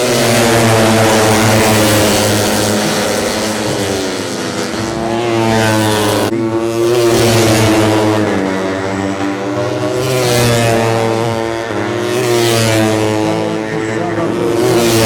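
Several 150cc four-stroke underbone racing motorcycles running hard, their engine pitch climbing and dropping several times as the revs rise and fall.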